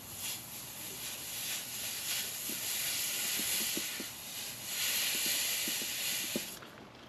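Wet rag wiped around a freshly soldered copper sweat joint, a steady hiss with light crackles that stops shortly before the end; the rag is cooling the hot joint.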